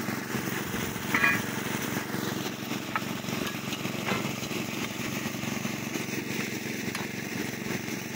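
Small engine of a portable rail drilling machine running steadily under load while its twist drill bores through a mild steel plate. A brief louder clatter about a second in.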